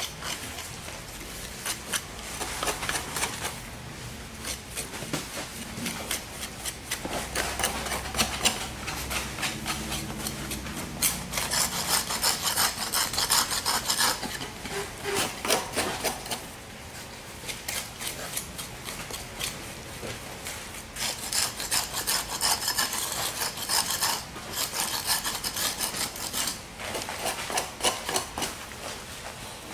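Gloved hands scraping and rubbing premix concrete along steel frame rails, in runs of quick strokes with short pauses between them.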